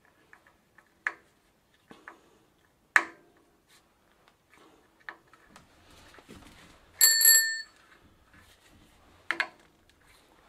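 A few sharp metal clicks and knocks from a screwdriver and parts being handled on a bicycle handlebar, and about seven seconds in a bicycle bell rings once, briefly, while it is being refitted to the handlebar.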